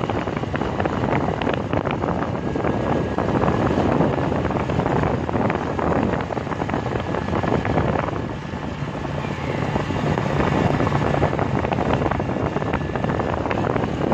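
Motorcycle engine running on the move, mixed with heavy wind noise on the microphone. The sound eases briefly around eight seconds in, then picks up again.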